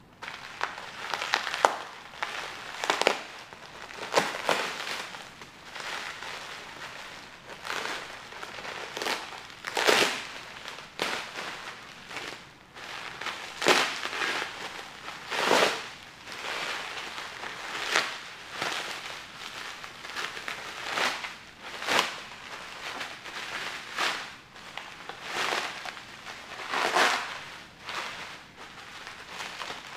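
Plastic bubble wrap crinkling and crackling in irregular bursts as it is pulled and unwound by hand, with a few sharper, louder crackles.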